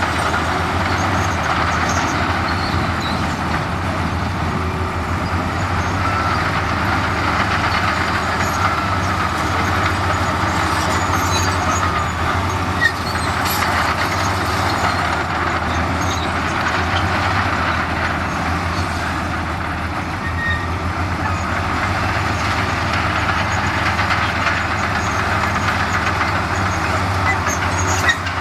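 Heavy diesel earthmoving machinery running steadily under load: a low engine drone with a dense mechanical clatter over it, and a single sharp click about halfway through.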